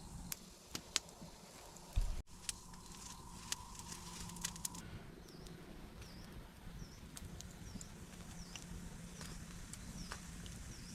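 Forest sounds: scattered sharp snaps and clicks, with a dull thump about two seconds in. From about halfway through, a short dipping chirp repeats roughly every half second.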